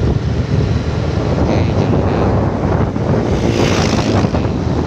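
Wind buffeting the microphone of a moving motorcycle, over the steady rumble of its engine and the road. A hiss swells briefly a little after three seconds in.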